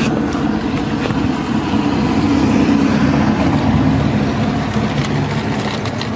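A car running, heard from inside the cabin: a low steady hum that swells slightly through the middle and eases off near the end.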